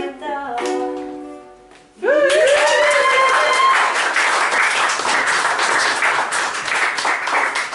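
Last ukulele notes ringing out and fading. About two seconds in, a small audience breaks into applause, opened by a whooping call that rises in pitch.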